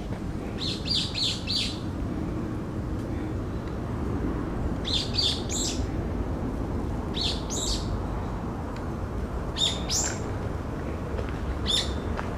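Brown-eared bulbul giving sharp, high calls in five short bursts a few seconds apart: the first two bursts have about four notes each and the last is a single note. A steady low rumble runs beneath. The uploader takes these calls for an earthquake warning.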